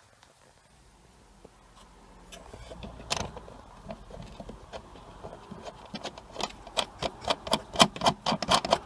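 Small irregular clicks and knocks of metal fixing nuts and brackets being handled and threaded by hand onto the rear light cluster's studs. These grow busier and louder over the last few seconds.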